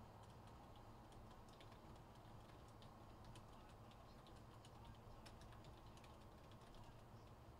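Faint typing on a computer keyboard: irregular quick keystroke clicks over a low steady hum.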